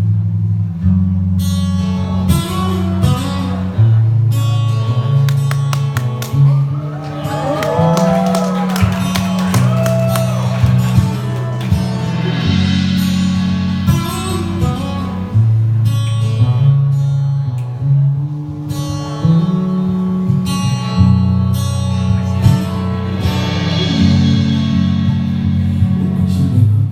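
Live acoustic music: guitar over a deep bass line, with a voice singing briefly about a third of the way in.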